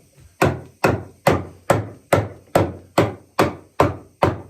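Steady hammer blows, about ten evenly paced strikes a little over two a second, each one short and quickly dying. They are driving the joints of a rustic sourwood chair frame together.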